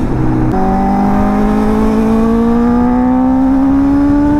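Benelli 600i motorcycle's inline-four engine pulling under acceleration, its pitch rising steadily from about half a second in.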